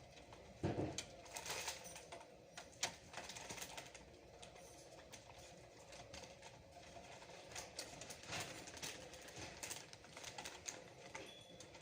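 Scattered light clicks and taps of hands handling desktop computer parts, with one dull thump about a second in.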